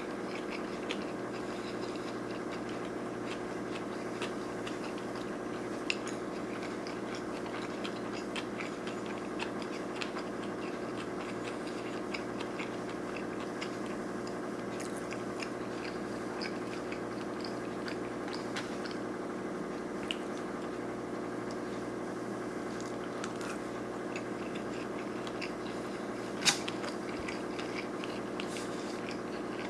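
A person chewing sushi rolls close to the microphone, with many small mouth clicks over a steady background hum. Near the end comes one sharper click.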